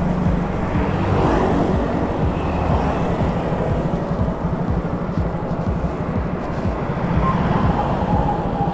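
Steady engine and wind rumble from a small vehicle riding along a city street, with heavy low buffeting on the microphone.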